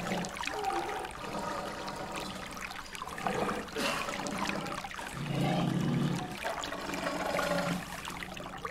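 Water splashing and churning as two young tigers wrestle in a shallow stream, over the steady rush of running water. There is a louder low-pitched stretch about five seconds in.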